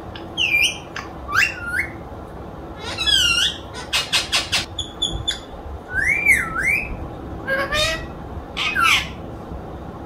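Rose-ringed parakeet (Indian ringneck) calling in its cage: a string of short squawks and chirps, with a quick run of clicky notes about four seconds in and a longer rising-and-falling whistle about six seconds in.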